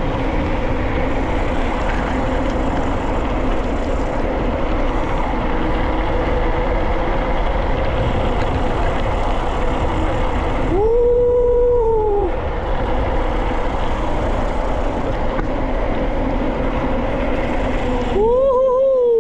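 Wind rush on the camera microphone and the running noise of a mountain bike on a downhill descent. About 11 seconds in, and again near the end, there is a brief squeal that rises and falls.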